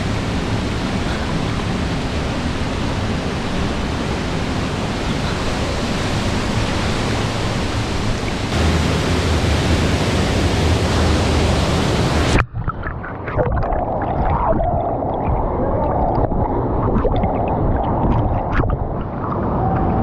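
Steady, loud rush of a waterfall and churning water echoing in a narrow rock gorge. About twelve seconds in it cuts off suddenly to a duller, muffled rush of water with scattered knocks.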